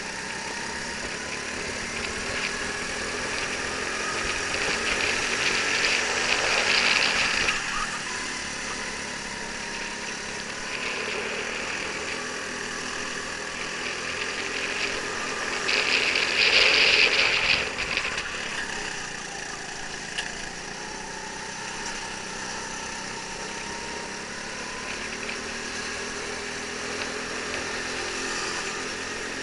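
Go-kart engine running under the onboard camera as the kart laps, its pitch rising and falling with the throttle through the corners. Two louder spells, one about six seconds in and one just past halfway.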